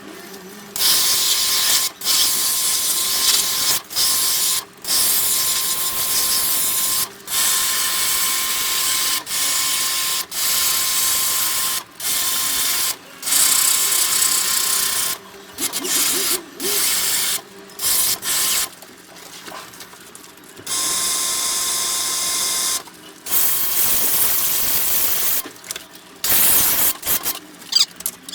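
High-pressure washer spraying an air conditioner in on-off bursts of one to three seconds: a loud hiss with a steady motor whine under it, both starting and stopping sharply with each pull of the trigger.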